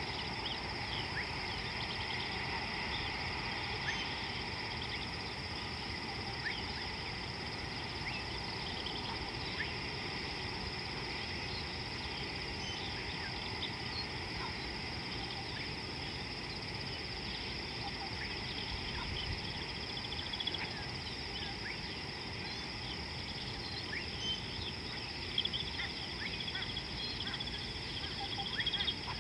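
African bush ambience: a steady high insect drone with many short bird chirps scattered through it, over a low outdoor rumble.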